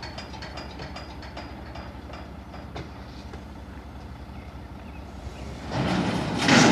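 Vehicle engine idling with a steady, fast throb, then louder noise about a second before the end as a car drives down the metal loading ramps of a car-carrier trailer.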